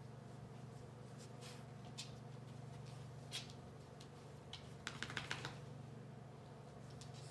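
Faint rustling and scratching as an Australian terrier noses and paws at a draped cloth sheet, with a quick run of light clicks about five seconds in, over a steady low hum.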